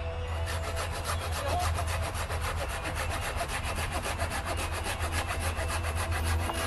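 Hand pruning saw cutting through a thin green wood pole in quick, even back-and-forth strokes, several a second. It starts about half a second in and stops just before the end.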